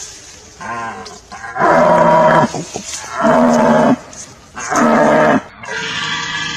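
Red deer stag roaring in the rut: five deep calls in a row, each under a second, the middle three the loudest.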